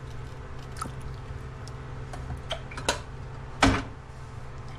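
Steady low background hum with a few light clicks and one louder thump about three and a half seconds in.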